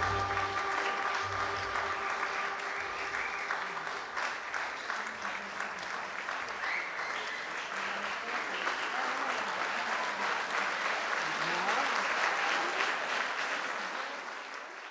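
Audience applauding with a few shouts of cheering, while the song's final held chord dies away over the first two or three seconds; the applause fades out at the very end.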